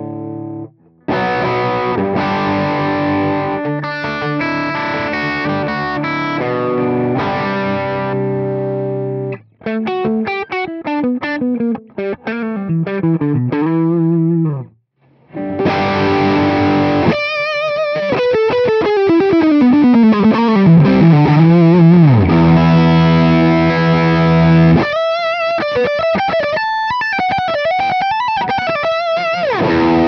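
PRS SE Custom 22 semi-hollow electric guitar played through the Sonicake Matribox II Pro's Shark distortion model, a copy of the MI Audio Crunch Box: repeated distorted chords, then single-note runs falling in pitch and long held chords, with a brief break about halfway. The drive's gain is turned up from low to maximum partway through.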